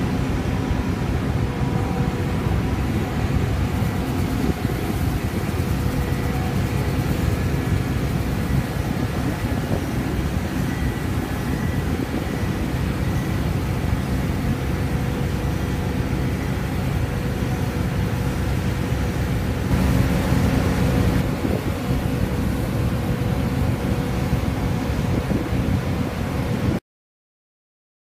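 Massey Ferguson IDEAL combine harvester running at work, harvesting while unloading grain through its auger. Its engine and threshing machinery make a steady drone with a few faint constant whines over it. The sound cuts off abruptly about a second before the end.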